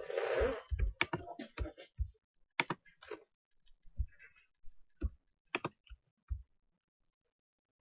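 Irregular clicks and soft knocks from handling things at a desk close to the microphone, with a short rustle at the start. It thins out and stops about six and a half seconds in.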